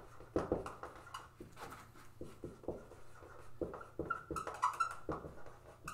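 Marker pen writing on a whiteboard: an irregular run of short scratchy strokes and taps, with a few brief squeaks about four to five seconds in.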